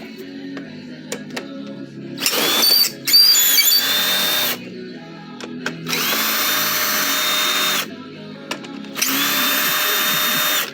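Power drill running in three bursts of about two seconds each, with background music underneath.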